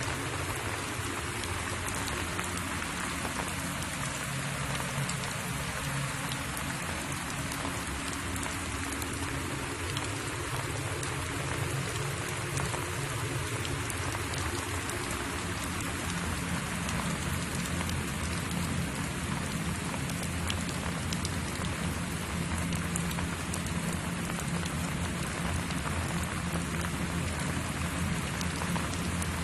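Steady, even hiss like rain falling on a surface, with a faint low hum underneath.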